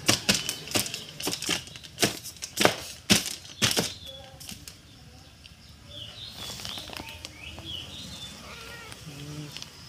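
A domestic cat shaking its head, its ears flapping against its head in a run of sharp, irregular flaps over about the first four seconds, then quieter.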